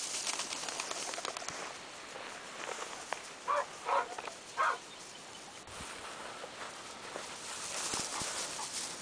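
A dog barks three short times in quick succession, about half a second apart, partway through. Dry grass rustles and swishes around it, loudest near the start and again near the end as someone walks through it.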